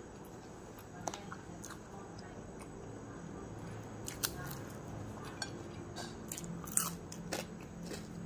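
Close chewing and mouth sounds of a person eating, with a few sharp crackles and clicks as dried fish is torn apart by hand.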